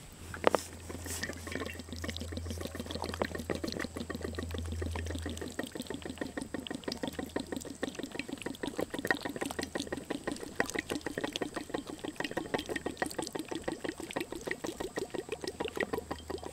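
Water streaming out of an upturned metal water bottle whose lid has been loosened, splashing over hands as they are rinsed and rubbed together under it. In the second half it becomes a quick, rhythmic splashing. A sharp knock about half a second in.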